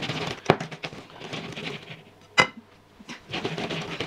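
A kitchen utensil mashing ripe bananas with sugar in a mixing bowl, scraping and knocking against the bowl. About two and a half seconds in there is one sharp ringing clink of the utensil striking the bowl.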